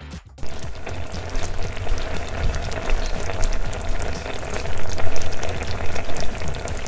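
Milk bubbling and sizzling as it boils in a small stainless steel pot, a dense crackle of fine pops over a low rumble, starting about half a second in.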